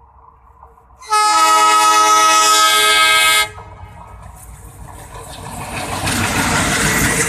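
A WDM-3A diesel locomotive's air horn sounds one long blast of about two seconds. Then the locomotive's ALCO diesel engine and its wheels on the rails grow louder as the train runs past close by.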